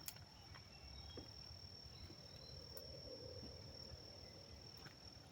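Faint, steady high-pitched trill of crickets, with a few faint ticks.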